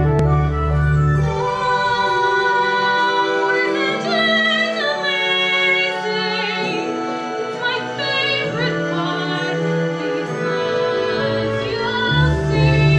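A woman singing in a classical, operatic style with vibrato over a keyboard accompaniment; her voice comes in about a second and a half in.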